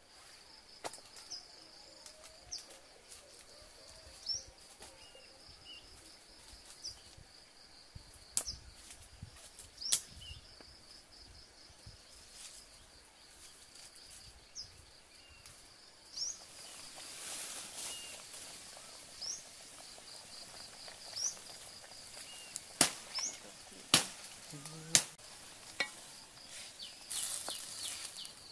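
Outdoor forest ambience: a steady, pulsing high insect drone with short rising bird chirps every second or two. Scattered sharp snaps and two spells of rustling, as of dry leaves and twigs being trodden or handled, are the loudest sounds.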